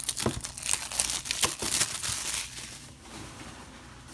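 Plastic shrink-wrap being torn and peeled off a Blu-ray case: dense crinkling and crackling, loudest in the first two and a half seconds, dying down after about three.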